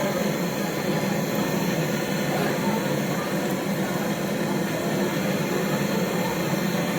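Gas brazing torch flame hissing steadily while copper pipe is brazed onto a fridge compressor.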